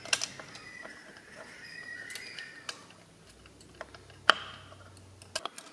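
Small metallic clicks and taps of hands fiddling with a CAV diesel injection pump's governor spring and stopper linkage while hooking the spring onto the top cover, with one sharper click about four seconds in.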